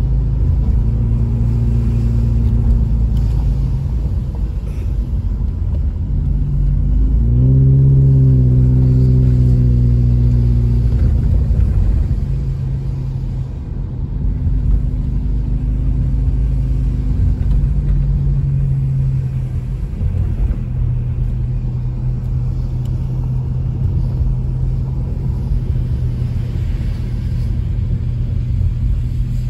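Car engine and road noise heard from inside the cabin while driving. About seven seconds in, the engine note rises as the car speeds up, holds for a few seconds, then eases off; it picks up again more gently a few seconds later.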